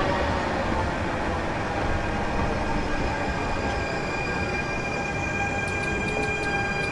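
PKP Intercity electric multiple unit running past and drawing away: a steady rumble of wheels on rail under several steady electric whine tones. A light, regular ticking comes in near the end.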